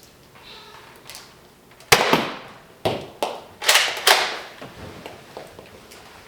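A series of about five sharp knocks or thumps in quick succession, starting about two seconds in, each dying away quickly.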